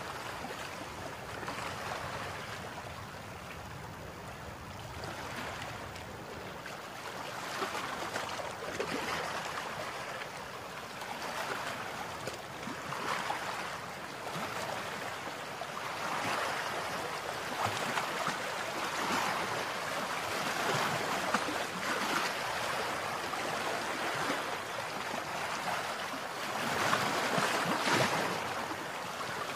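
Water rushing and splashing along the hull of a boat moving up a river, rising and falling in surges every few seconds.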